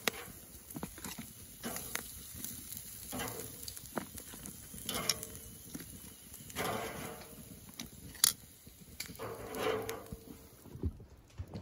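Metal tongs clicking and scraping against an expanded-metal grill grate as grilled beef short ribs are lifted onto a paper plate, in a run of irregular clicks with one sharp clack about eight seconds in. Between the clicks come short hissy stretches of meat sizzling and the wood fire crackling under the grate.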